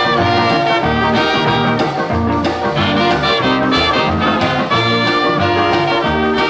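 Instrumental break in a calypso recording: a horn section plays held, bright phrases over a bouncing bass line and steady rhythm, with no vocal.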